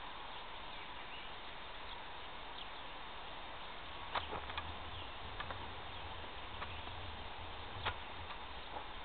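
Steady outdoor background hiss with a few short, sharp clicks, the loudest about four and eight seconds in, and a low rumble between them.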